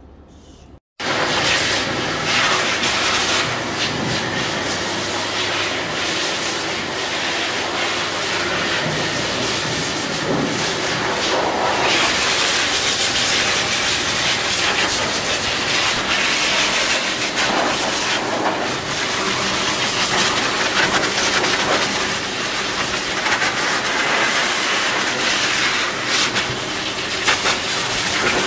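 Pet grooming force dryer blowing a loud, steady rush of air through its hose and flat nozzle onto a dog's wet coat, starting suddenly about a second in.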